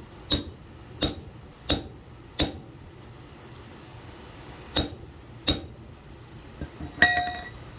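Hammer blows on a chisel, securing a copper eyelet onto a braided copper ground lead: four sharp, ringing metal-on-metal strikes about two-thirds of a second apart, then two more after a pause. Near the end comes a ringing metallic clink.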